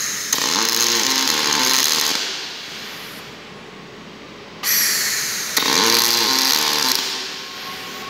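Robotic welding torch making two short welds. Each weld is a loud, hissing burst of a few seconds with a sharp tick shortly after it begins, and then it fades out. The second burst starts suddenly about halfway through.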